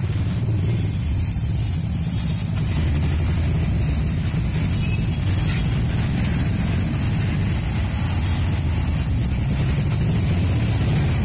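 Gas welding torch flame burning against a steel bracket: a steady low roar with a hiss, a little louder from about two and a half seconds in.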